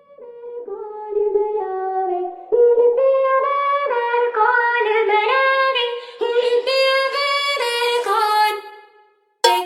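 Music: a wordless sung melody with a vocal-like tone, moving in steps from note to note and swelling in loudness over the first few seconds. It breaks off near the end, and a loud bass-heavy track cuts in just as it stops.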